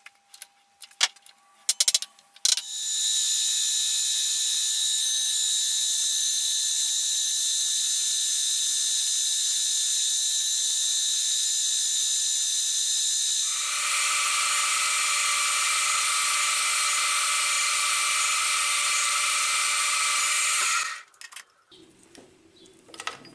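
A few sharp knocks, then a Deckel FP1 milling machine running with its end mill cutting a small metal block: a loud, steady whine with a hiss of cutting. The tone changes about two-thirds of the way through, and the machine noise cuts off suddenly near the end.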